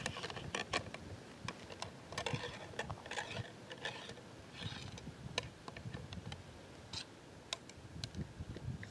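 Faint scattered clicks and soft crunching rustles, most of the crunching about two to five seconds in.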